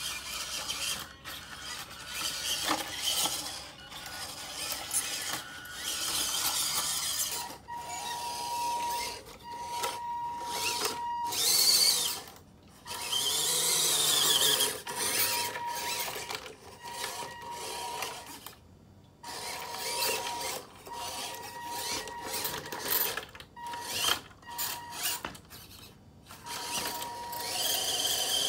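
Electric motor and gearbox of a 1/16 scale WPL RC truck whining as it drives in stop-and-start bursts, the whine rising and falling in pitch with its speed.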